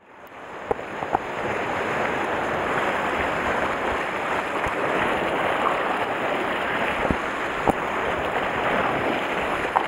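Sea surf washing on a rocky shore, mixed with wind on the microphone: a steady rush of noise that fades in over the first two seconds. A few short, sharp clicks stand out above it.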